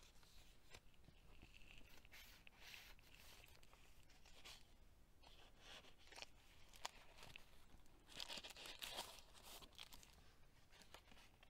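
Faint rustling and crinkling of paper as the pages and inserts of a handmade paper journal are turned and handled, with a few small clicks and a louder rustle about eight seconds in.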